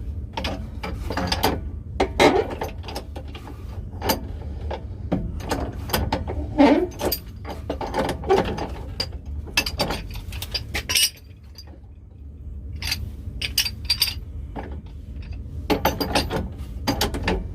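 Hand tools working on metal plumbing fittings while an old well pressure tank is taken out: irregular metallic clicks, clanks and ratcheting, with a quieter pause a little past halfway. A steady low hum runs underneath.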